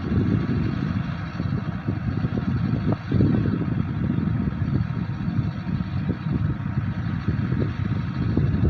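Mahindra combine harvester running, a steady low rumble.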